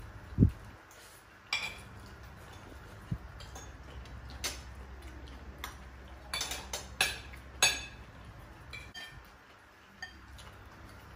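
Metal spoons clinking and scraping against ceramic plates and bowls during a meal, in scattered sharp clicks that bunch together about two-thirds of the way through. A single dull thump about half a second in is the loudest sound.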